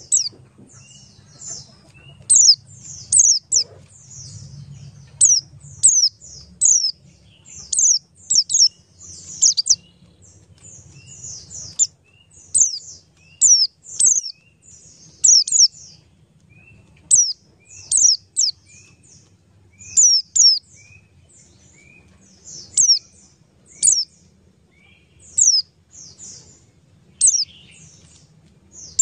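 A bird chirping over and over: quick clusters of two or three sharp, high notes that sweep downward, repeated every second or so, with softer, lower chirps in between.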